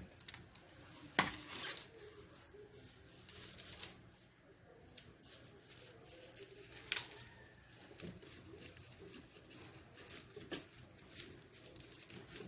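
Light handling sounds from a juicer's plastic parts and produce: a few sharp clicks and knocks, the loudest about a second in, with soft rustling and crinkling as a bunch of celery is handled and pushed into the feed chute near the end.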